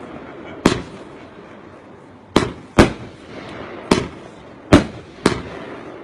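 Fireworks going off: six sharp bangs at uneven intervals, some in quick pairs, each with a short echoing tail.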